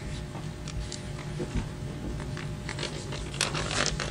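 Press-room handling noise during a change of speakers: shuffling and rustling with scattered sharp clicks, thickening into a quick run of clicks about three and a half seconds in, over a steady low hum.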